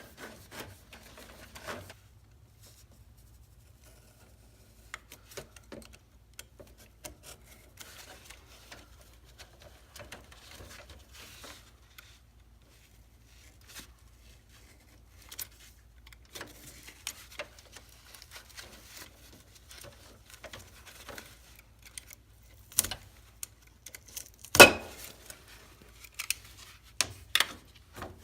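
Electrical cable being handled and pulled through holes drilled in a wooden beam: scattered rustling, scraping and light clicks. A few sharp knocks come in the last few seconds, one much louder than the rest.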